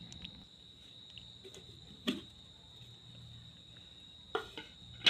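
A cricket chirring steadily in the background, one thin unbroken high note, with a few light knocks of kitchenware about two seconds in and twice near the end.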